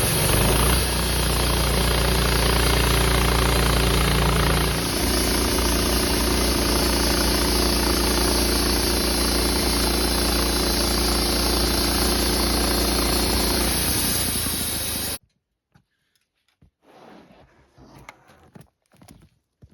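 Wood-Mizer LT15 portable band sawmill running, its engine and band blade sawing a Douglas fir log in a steady noisy din, with a shift in pitch about five seconds in. The sound cuts off abruptly about fifteen seconds in, leaving faint scattered knocks.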